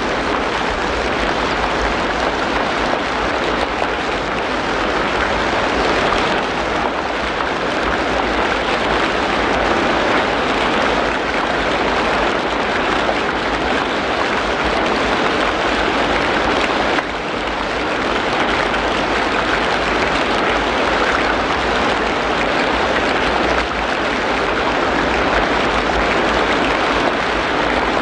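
Steady rain falling on forest foliage, an even hiss of many drops with no single sound standing out.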